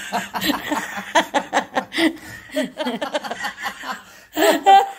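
Laughter: rapid, breathy chuckling, rising to a loud, high-pitched squeal of laughter about four and a half seconds in.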